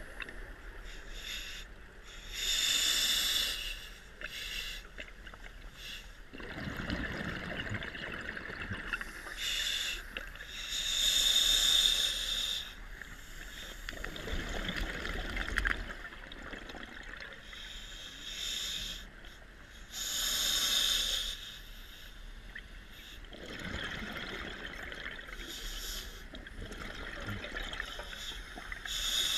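Scuba diver breathing through a regulator underwater, in a slow even rhythm: a hissing inhale about every nine seconds, each followed a few seconds later by a lower bubbling exhale.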